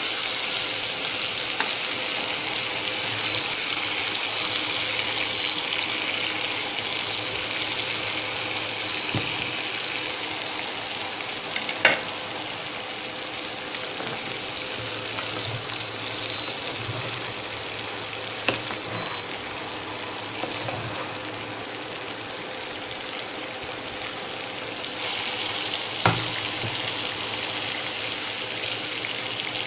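Pork steak frying in butter and garlic in a pan, a steady sizzle that grows a little louder near the end. Three sharp clicks stand out over it, the last near the end.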